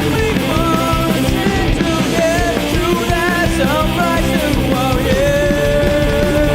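Live band playing a metalcore song, taken straight from the mixing desk: heavy distorted guitars, bass and drums, with a melodic line on top. About five seconds in, the melodic line settles into a long held note.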